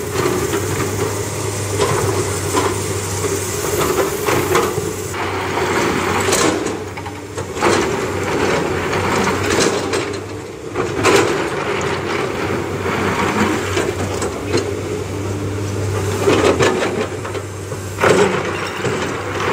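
Hyundai crawler excavator's diesel engine running steadily as the machine works, with several loud clanks and rock clatter as its bucket digs at broken stone.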